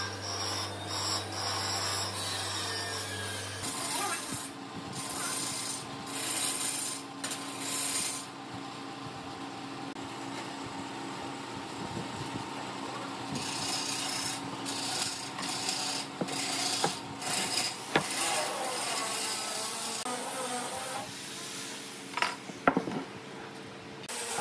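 Pencil scratching along pine boards and a steel square sliding and tapping on the wood while the boards are marked out, in stretches of scratchy strokes with a few sharp taps, over a steady background hum.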